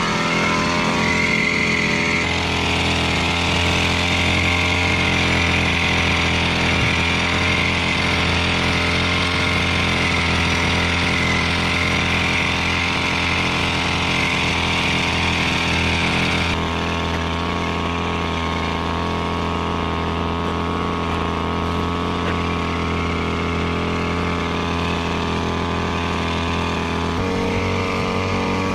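Small engine of a Koshin EP-10P engine-driven power sprayer running steadily while spraying. A steady hiss joins about two seconds in and stops about halfway through, and the engine note shifts slightly near the end.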